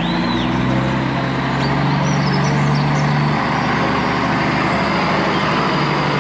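Steady engine drone like a tractor running, with its pitch shifting slightly about three seconds in and again near the end.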